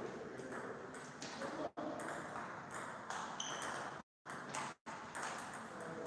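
Table tennis ball bouncing between points, a light ping over a steady hiss of room noise. The sound drops out briefly a couple of times in the middle.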